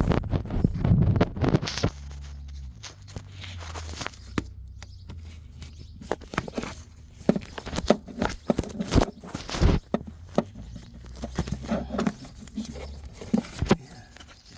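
Irregular clicks, clinks and knocks of hand tools on metal engine parts during an engine teardown, over a steady low hum that stops near the end.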